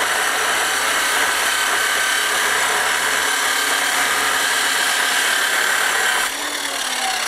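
Metal-cutting chop saw running and cutting steel stock for legs, a loud steady whine. About six seconds in the cut ends and the saw winds down with a falling tone.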